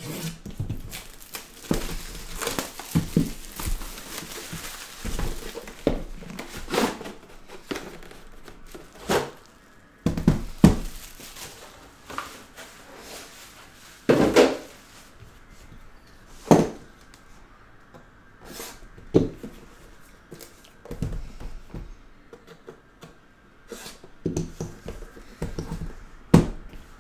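Plastic shrink wrap slit and peeled off a cardboard card box, crinkling, then a series of knocks and thunks as a gold aluminium briefcase-style card case is lifted out and handled on a table.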